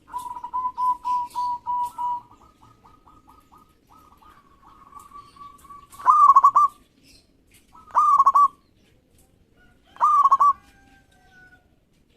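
Zebra dove (perkutut) cooing: a quick run of about six coos, then a faster stuttering series of short notes, then three loud coo phrases about two seconds apart.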